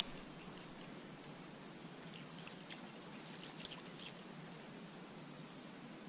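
Faint outdoor ambience: a steady high-pitched drone with a few faint chirps between about two and four seconds in, after one sharp click at the very start.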